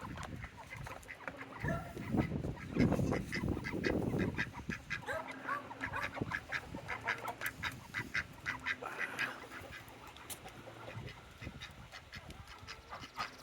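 Farmyard ducks and geese calling in a rapid, busy stream of quacks and honks. Wind gusts buffet the microphone with a low rumble about two to four seconds in.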